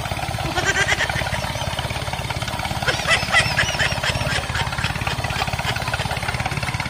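Steady, rapid, even chugging like a tractor engine, with short high chirps over it about a second in and again around three seconds in.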